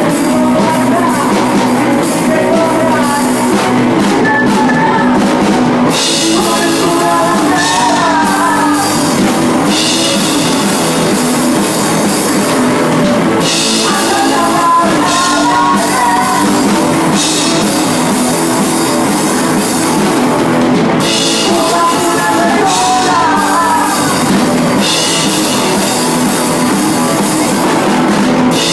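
Rock band playing live through a PA: drum kit with cymbals, electric guitars and a singing voice.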